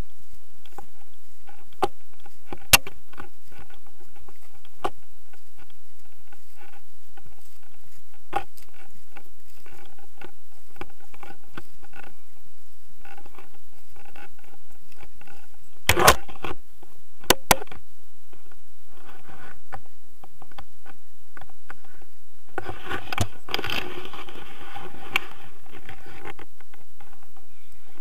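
Wind rushing over an action camera's microphone during a paraglider flight, a steady low rumble broken by scattered knocks and rattles. The rushing grows louder and hissier for a few seconds near the end.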